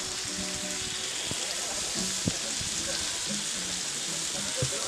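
Meat sizzling in a hot barbecue grill pan, a steady hiss, with a few sharp clicks of chopsticks against the pan as the pieces are turned.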